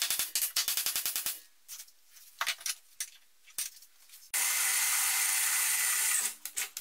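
Rapid, evenly spaced hammer blows on a steel bar clamped in a bench vise, stopping about a second in, followed by a few scattered knocks. Later a power drill bores into the steel for about two seconds, a steady grinding run with a thin high whine, and then stops.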